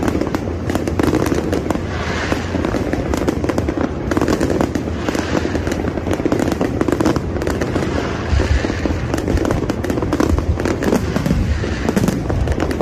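Aerial fireworks going off in a dense, continuous barrage of bangs and crackles with no pauses.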